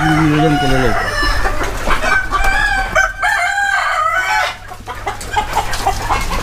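A shed full of desi (gavran) chickens: hens clucking, with roosters crowing over them.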